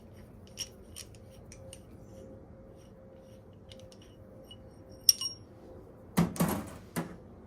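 Light metal clicks and clinks as the motorcycle's rear axle is handled and fitted into the ultrasonic cleaner's basket, with a ringing metallic clink about five seconds in and a louder clunk just after six seconds.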